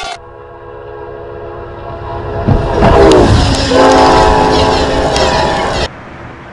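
A locomotive horn sounding steadily and growing louder as the train approaches. About two and a half seconds in, a loud rush breaks in as the train passes through the snow, with the horn dropping in pitch. The horn then sounds again loudly and cuts off suddenly near the end to a quieter steady rushing.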